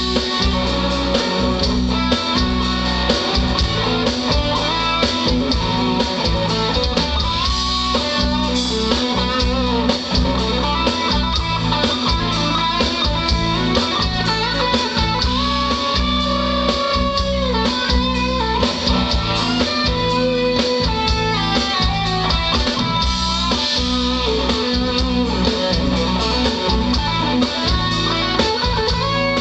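Live band playing an instrumental stretch: an electric guitar carries a lead line with held, bending notes over strummed acoustic guitar, bass and a steady drum beat.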